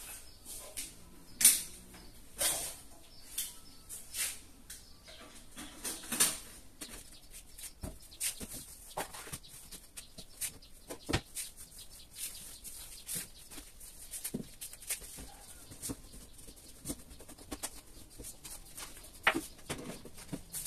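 Scattered knocks, clinks and rustles of kitchenware being handled and set down, with one sharp knock about a second and a half in.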